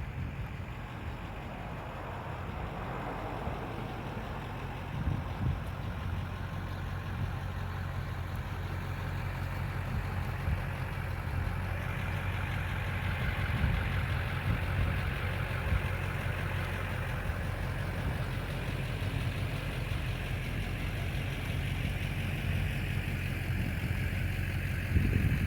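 A vehicle engine idling with a steady low hum, and a rushing hiss that grows louder about halfway through.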